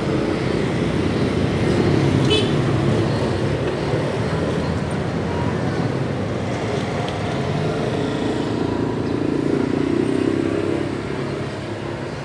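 Steady road traffic noise from passing vehicles' engines, swelling twice and easing off near the end.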